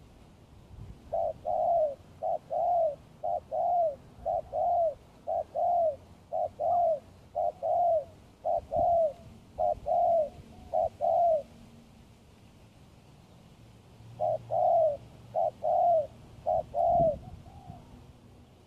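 Spotted dove cooing: a run of repeated two-note coos, a short note followed by a longer arching one, then after a pause of about three seconds a shorter run of the same coos.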